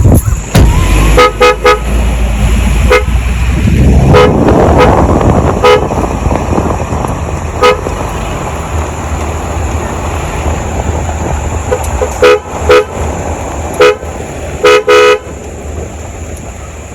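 Vehicle horn tapped in short beeps, some single and some in quick runs of two or three, over the low rumble of the vehicle's engine.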